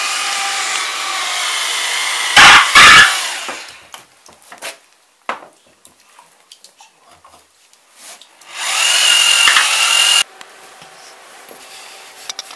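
A handheld electric power tool runs with a steady motor whine. About two and a half seconds in it gives two very loud harsh bursts, then falls to a quiet stretch of scattered clicks and knocks. It runs loudly again for about a second and a half near the end and stops abruptly.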